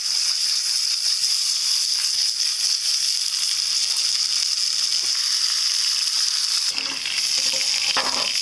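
Chicken frying in hot oil, a steady sizzle.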